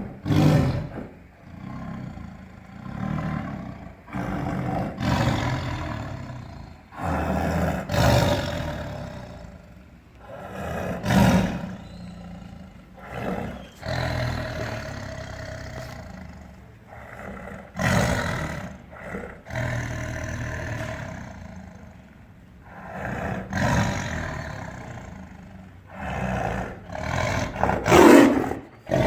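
Tiger roaring and growling repeatedly: a series of separate roars one to three seconds apart, varying in strength, the loudest one near the end.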